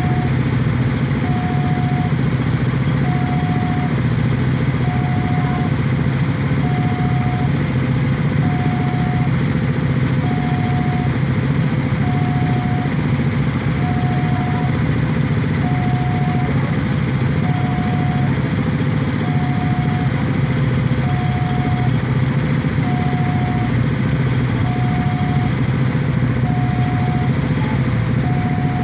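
Railway level-crossing alarm sounding a steady, evenly pulsed electronic tone, a little under one and a half seconds per cycle, over the low running of many motorcycle engines idling in the queue at the closed crossing.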